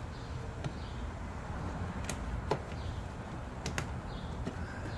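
A flat screwdriver prying at the plastic cowl trim and its seal strip below the windshield, giving several sharp plastic clicks, two of them close together a little before four seconds in, over a steady low hum.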